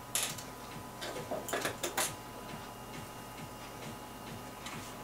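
Small sharp metal clicks and taps of a screwdriver and screws working on the metal casing of a Pioneer CDJ-800 mk2: one click near the start, a cluster about one and a half to two seconds in, then only faint ticks, over a faint steady hum.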